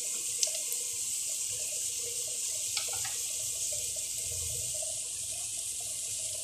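Pot of pasta water at a rolling boil, bubbling steadily as the macaroni cooks soft, with a couple of light clicks about half a second in and near the middle.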